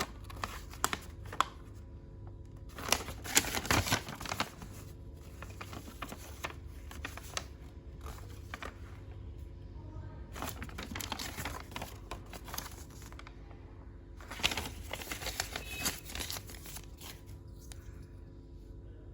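Plastic toy and its packaging being handled: clicks, rattles and rustling in three stretches, the loudest a few seconds in, over a faint steady hum.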